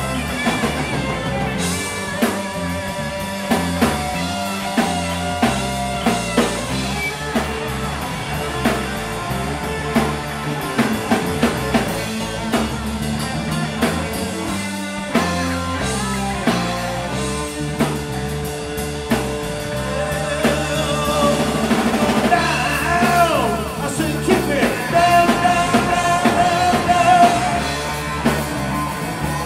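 Live rock band playing an instrumental passage on electric guitars, bass and drum kit. A lead guitar line with bent, sustained notes grows louder over the last few seconds.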